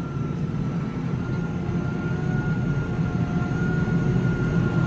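Tractor engine running steadily, with a thin steady whine above the engine note.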